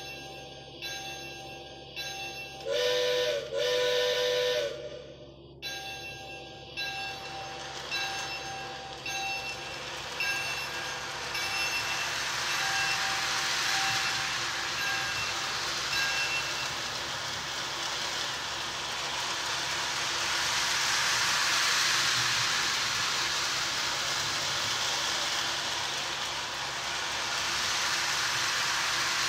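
Lionel Scout remote-control steam train set's sound system ringing its locomotive bell, with two long blasts of the steam whistle about three seconds in. The toy locomotive then moves off around the plastic Fastrack loop, and a steady rush of its running sound and wheels on the track builds up while the bell rings on and fades out about halfway through.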